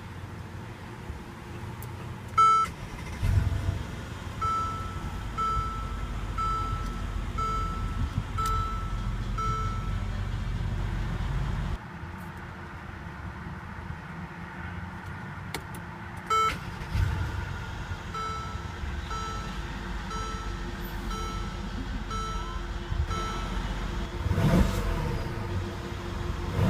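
Mercedes-Benz SL550's twin-turbo V8 idling under a car warning chime that dings repeatedly, about once every three-quarters of a second, in two runs. The engine revs up and down near the end.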